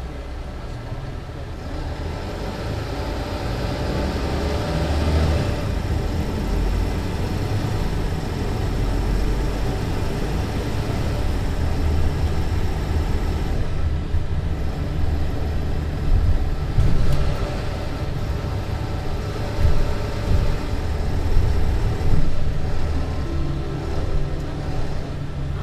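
Mercedes-Benz Citaro C2 LE city bus with its Voith automatic gearbox, engine running under way; the sound builds over the first few seconds and then holds, with a few short louder peaks later.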